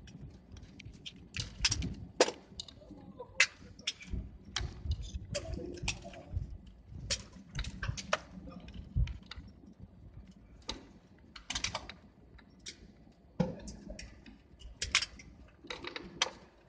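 Irregular sharp clicks and taps inside an airliner cabin, dozens of them at uneven intervals, over the faint low rumble of the plane taxiing.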